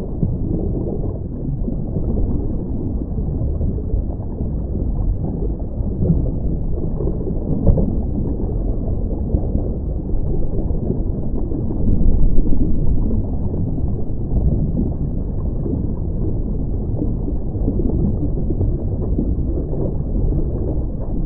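Steady low rumbling noise with no voices, swelling louder briefly about twelve seconds in, with a single faint click shortly before.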